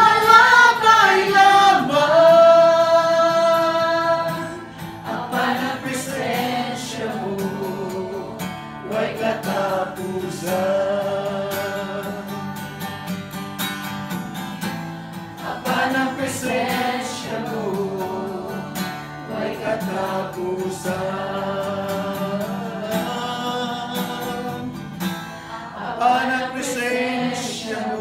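A man singing a slow worship song to acoustic guitar strumming, holding one long note for the first few seconds before the melody moves on.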